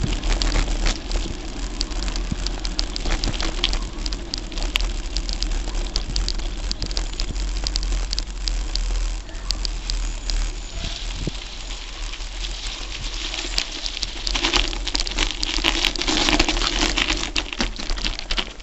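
Mountain bike tyres crunching and crackling over a dirt and gravel lane, picked up by a camera on a tripod taped to the handlebars, with constant small rattling clicks and a low rumble of vibration and wind. It grows louder and rougher for a couple of seconds near the end.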